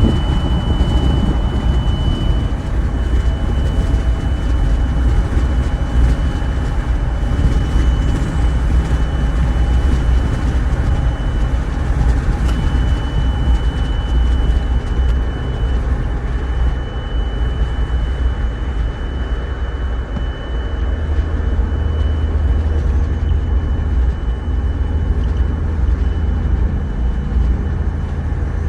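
A steady high-pitched tone inside the cabin of a 2023 Toyota Tundra Platinum at highway speed, over a heavy low rumble. This is the loud, unexplained noise the truck started making on its own while driving. The tone breaks off briefly about twelve seconds in, and the low rumble grows heavier past the twenty-second mark.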